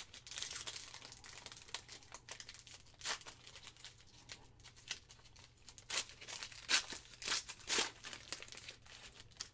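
Foil wrapper of a Panini Mosaic football card pack crinkling and tearing as it is ripped open by hand, with several sharper, louder crackles in the second half.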